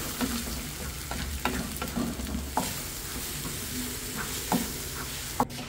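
Scrambled eggs with diced tomato and onion sizzling steadily in a nonstick frying pan while a wooden spatula stirs them, scraping and tapping against the pan many times, with one louder knock near the end.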